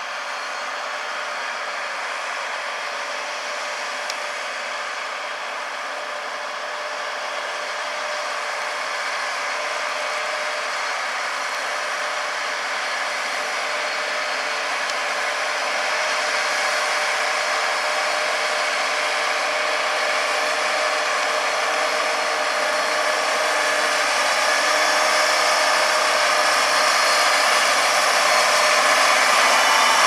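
John Deere crawler tractor's engine running steadily under load as it pulls a seven-furrow mounted plough, with a steady drone that grows louder as the machine approaches.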